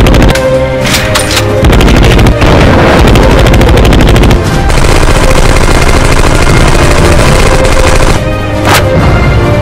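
Automatic gunfire sound effects: single shots and long bursts of rapid fire, over background music.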